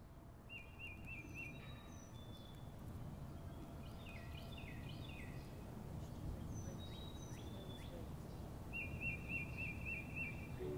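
Outdoor ambience of several birds calling over a low steady rumble, slowly growing louder. A short trill of quick repeated notes comes near the start and again near the end, with scattered higher chirps and falling calls between.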